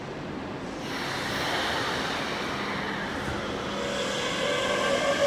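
Chiba New Town Railway 9100-series train's Toyo GTO-VVVF inverter and traction motors starting up as the train pulls out of the platform. A rush of noise comes in about a second in, then whining tones climb in pitch from about four seconds in as it accelerates.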